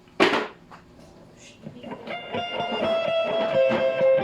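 Electric guitar played through a Boss GT-6 multi-effects processor with its pickup simulation effect on. A short, sharp strike comes about a fifth of a second in, then single notes ring out from about two seconds in, growing louder.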